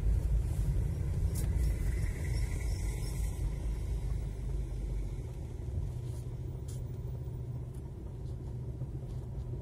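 Car cabin rumble from driving slowly in traffic: steady low engine and road noise, easing a little about halfway through as the car slows to a stop.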